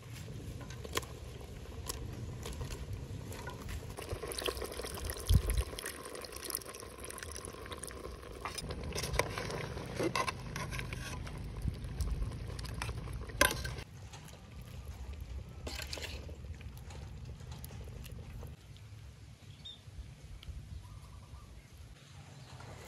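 Water pouring and splashing, with scattered knocks and clicks of handling; it is busiest for about ten seconds in the middle and then eases.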